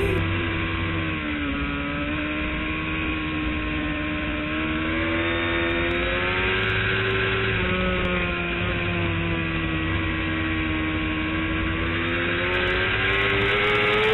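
Engine running at high revs under way on a race track, its pitch dipping about a second in, climbing slowly with small dips, and rising again near the end.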